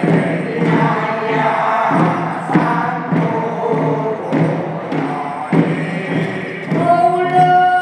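Group of elderly villagers singing a traditional Korean field song (deulsori) together, with a drum struck about once a second. Near the end one long note is held.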